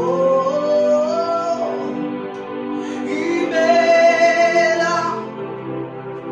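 Worship music: a singer holds long, drawn-out notes over sustained accompaniment chords. The voice glides up over the first second or so, then holds a long, louder note from about three and a half to five seconds in.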